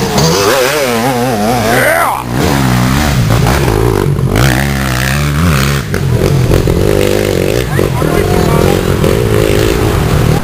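Off-road dirt bikes racing past close by, their engines revving, with the pitch rising and falling with the throttle.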